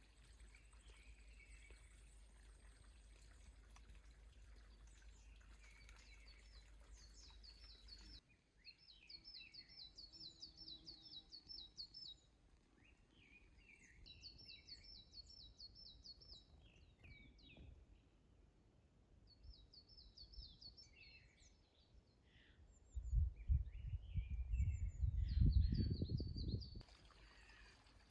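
Songbirds singing: repeated high, rapid trills and scattered chirps. Near the end, a low rumbling noise lasting about four seconds is the loudest sound.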